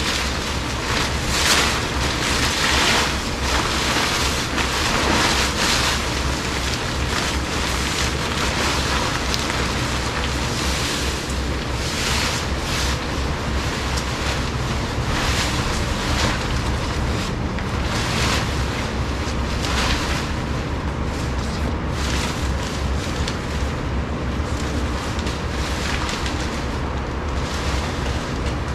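Wind buffeting the microphone with a steady low rumble and hiss. Over it come repeated swishing rustles every second or two from a tent's nylon rain fly being pulled over the frame.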